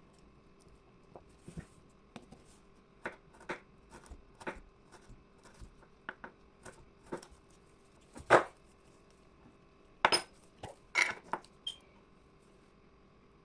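Kitchen utensils and containers clinking and knocking: scattered sharp taps, one louder clatter a little past halfway, then a quick cluster of knocks about ten seconds in.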